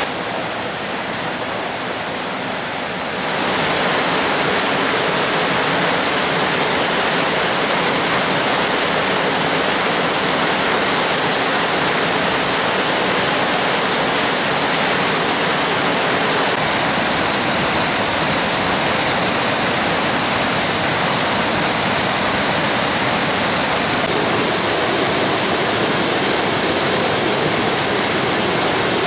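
Steady rush of water at a water-powered grist mill, louder from about three seconds in.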